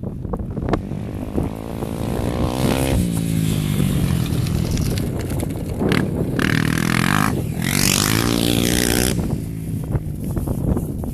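Four-stroke single-cylinder dirt bike engine revving and accelerating, its pitch rising and falling. A loud rushing noise lasts about three seconds in the middle.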